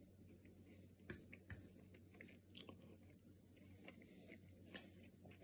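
Faint chewing of a mouthful of air-fried chicken pot pie with a crispy crust, with a few small sharp clicks scattered through, the sharpest about a second in.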